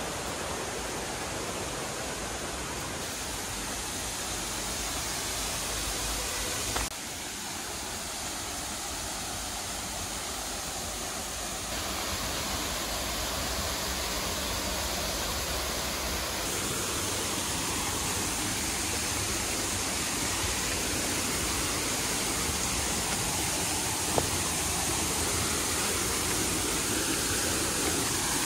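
Steady rushing of a waterfall and its stream, an even roar of falling water that drops suddenly about seven seconds in and steps up again around twelve seconds.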